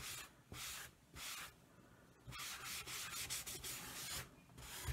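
Cloth rubbing teak oil into a beech-wood plaque in repeated back-and-forth strokes, a soft hiss with each stroke, a few separate strokes at first and then a quicker run from about halfway.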